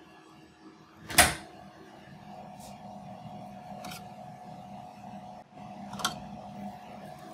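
A loud clunk about a second in, then a steady mechanical hum from a NextDent 5100 resin 3D printer, with a few light clicks.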